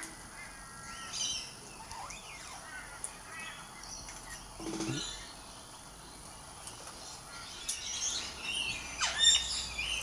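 King parrots calling: scattered short chirps and squawks, with a lower falling call about five seconds in and the loudest calls about nine seconds in.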